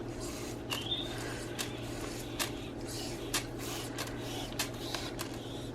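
Scattered light clicks and knocks of a plastic spray bottle being handled, with one brief high squeak about a second in.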